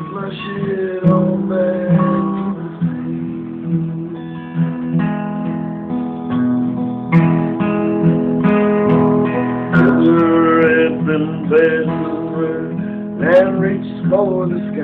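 Acoustic guitar strummed and picked in a steady run of chords, with a man singing along in places, most clearly near the end.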